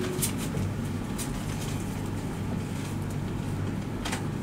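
Steady low hum of a quiet theatre hall, with a few faint rustles and clicks.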